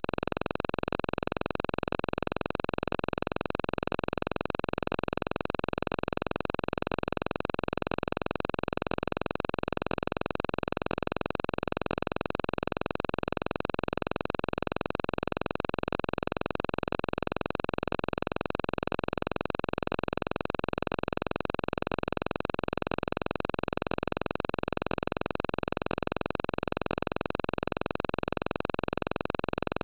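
Instrumental music track at an even level, with no singing.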